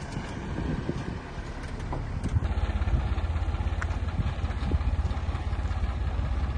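A large vehicle engine running, growing louder from about two seconds in and settling into a steady, rapid pulse.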